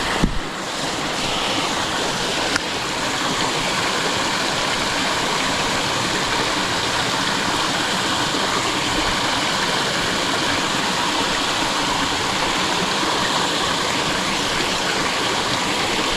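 Water rushing steadily over a small river spillway.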